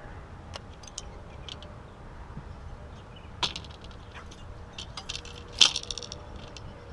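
Handling noise from fishing gear in a boat: scattered clicks and knocks with a light metallic rattle, the loudest about five and a half seconds in, over a low steady rumble.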